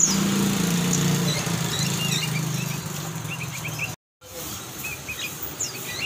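Caged songbirds chirping in many short, high calls, over a steady engine drone that fades out about three and a half seconds in. All sound cuts out for a moment around four seconds in.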